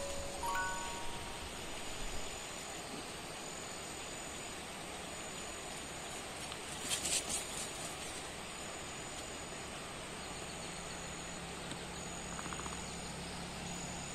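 Insects chirping in thick undergrowth: a thin high trill that comes and goes every second or so over a steady faint hiss, with a short louder burst about seven seconds in. The last few chime-like notes of background music fade out right at the start.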